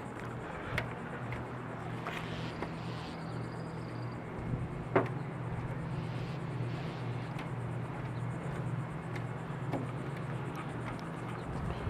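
Steady low hum of a running outdoor air-conditioning condensing unit, with scattered light clicks and one sharper click about five seconds in.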